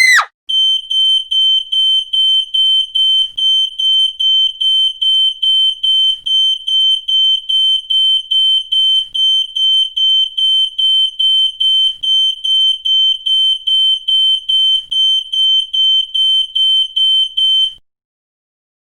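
Fire alarm sounding: a high, piercing electronic tone beeping rapidly, about three beeps a second, then cutting off abruptly near the end.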